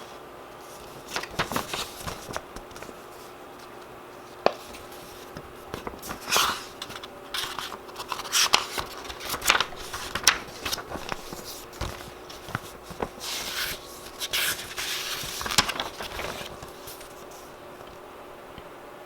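Handling noises: scattered clicks, scrapes and rustles, in clusters through the middle, over a faint steady hum.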